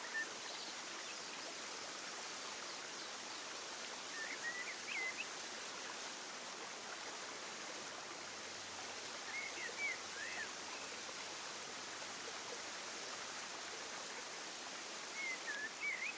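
Natural outdoor ambience: a steady hiss of flowing water, with a short chirping bird call about every five seconds.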